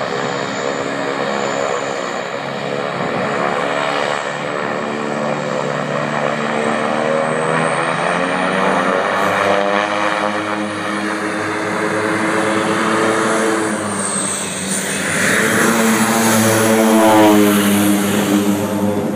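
De Havilland Canada DHC-6 Twin Otter's twin PT6 turboprops at full takeoff power, a steady propeller drone building as the plane runs down the dock toward the camera. It is loudest as the plane climbs past close overhead near the end, where the propeller tones bend in pitch.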